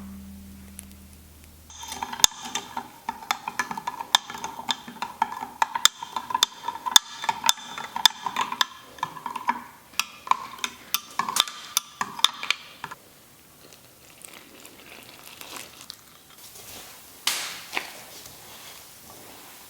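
Kitchen utensil knocking and clinking against a dish, many irregular strikes with a ringing tone for about ten seconds, then a few quieter handling sounds and one louder knock.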